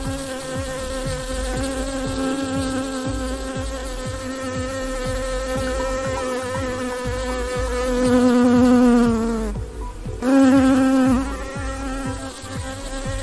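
Honeybees buzzing, a steady hum whose pitch wavers slightly. About eight seconds in the buzz grows louder, falls in pitch and breaks off for a moment, then comes back loud before settling again.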